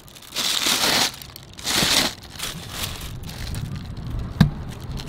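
Tissue paper in a shoebox crinkling in two rustling bursts as it is folded back, then one sharp tap about four seconds in.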